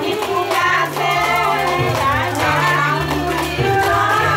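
A group of women singing a traditional Assamese ceremonial song together, with hand clapping keeping the rhythm.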